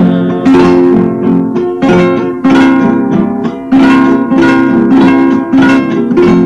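Guitar-led instrumental break of a Spanish-language popular song: plucked and strummed guitar notes in a steady rhythm, with no singing.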